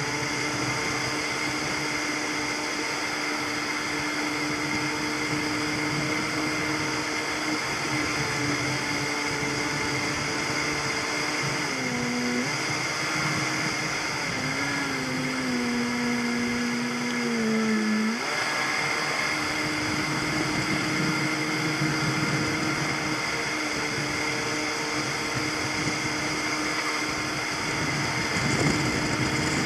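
Motorboat engine running at speed while towing a banana boat, over a steady rush of wake and wind. Its note dips a little just before the middle, sags lower for a few seconds, then picks back up.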